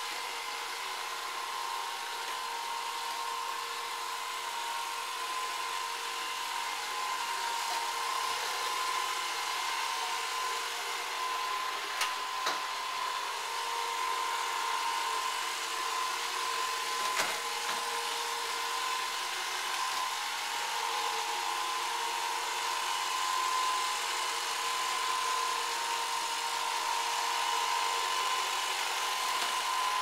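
An older-model iRobot Roomba robot vacuum running, with a steady motor whine. A few sharp knocks come near the middle.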